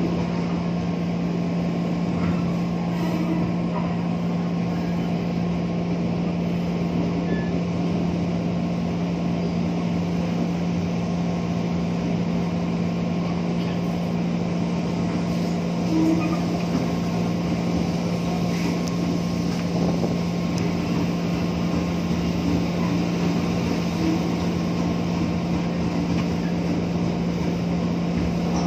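Steady running noise of an electric commuter train heard from inside the carriage, with a constant hum under it.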